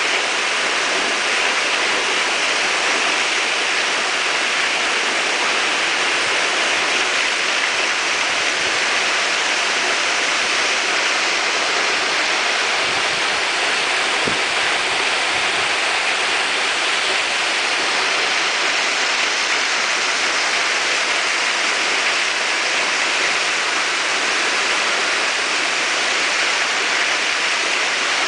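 Steady, unbroken rush of water from the Thoseghar waterfalls.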